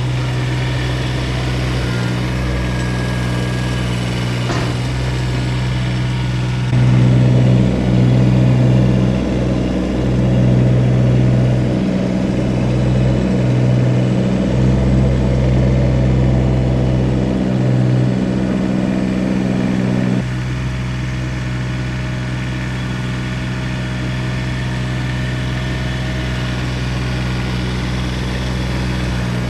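Kubota BX1850 compact tractor's three-cylinder diesel engine running at a steady speed. It grows louder and harsher from about a quarter of the way in to about two-thirds through, then settles back to the lower level.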